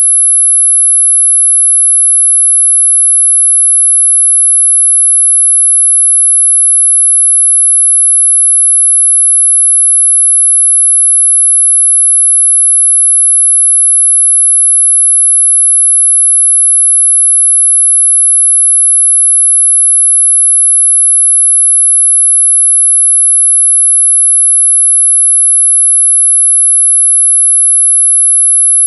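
A steady, unbroken 11 kHz sine tone: a single very high-pitched whistle, made as a masking sound for high-pitched tinnitus ringing.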